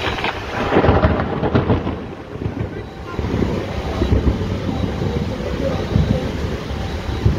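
Heavy rain and strong gusting wind in a thunderstorm, the wind buffeting the microphone with a low rumble. The gusts are loudest about a second in.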